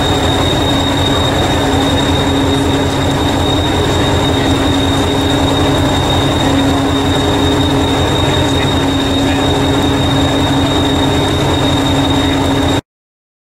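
Diesel engine of the Hastings diesel-electric multiple unit 1001 running steadily at a standstill, a low throbbing with a steady high whine over it. The sound cuts off suddenly near the end.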